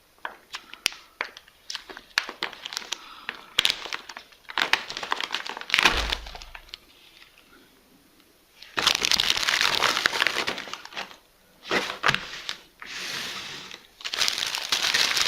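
Plastic MRE bag crinkling and crackling as it is handled and pulled open, in several bursts of rustling with scattered clicks. A low thump comes about six seconds in.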